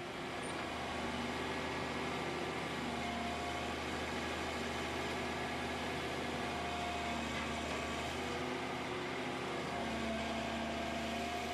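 Volvo EW160C wheeled excavator's diesel engine running steadily, with a hydraulic whine that comes and goes a few times as the outriggers and blade are lowered to level the machine.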